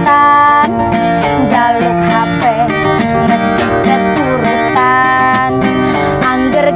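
Instrumental passage of a song: plucked guitar under a melody line that slides between notes, with no singing.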